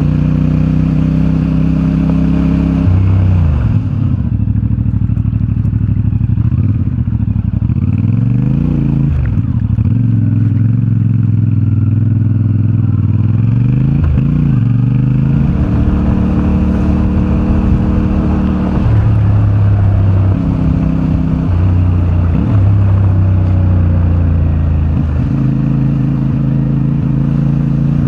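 CFMoto 450MT's parallel-twin engine running under way, its pitch rising and falling with throttle and gear changes, with several quick glides up and down between steadier stretches.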